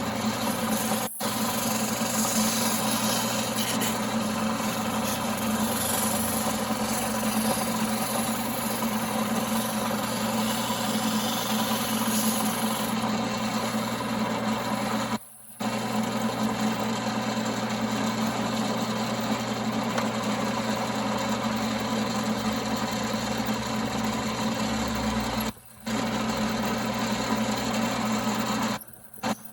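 1939 Pow-R-Kraft wood lathe running with a steady hum, turning wood, with brief dropouts about halfway through and near the end.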